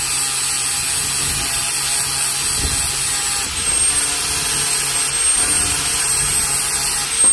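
Angle grinder running steadily against a 20 mm round steel bar, grinding a small flat into it so the pulley's set bolts can grip without slipping. A high whine joins in about halfway through.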